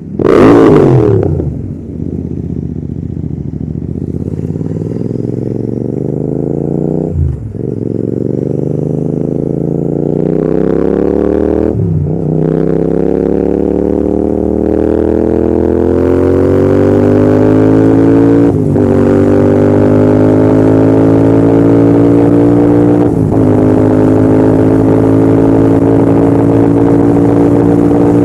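Royal Enfield Continental GT650's 648 cc parallel-twin engine and exhaust under hard acceleration, running up through the gears. The note climbs steadily and drops sharply at each of four upshifts, the last gear pulling more slowly towards top speed, after a loud brief rev right at the start.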